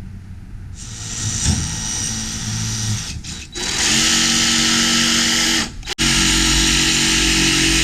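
DeWalt cordless power tool running at full speed while cutting out an electrical box opening in beadboard. The motor is loud and steady, stops for an instant about six seconds in, then runs on.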